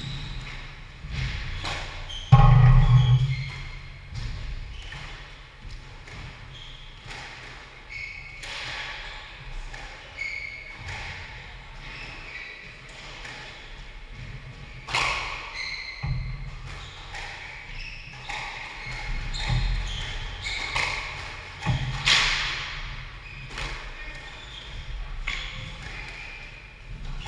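Squash rally: the ball smacking off rackets and walls at irregular intervals, with shoes squeaking on the wooden court floor. One heavy thud about two seconds in.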